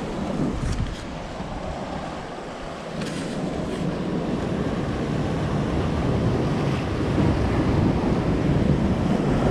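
Sea surf washing against the rocks, with wind buffeting the microphone; the rush grows louder from about three seconds in.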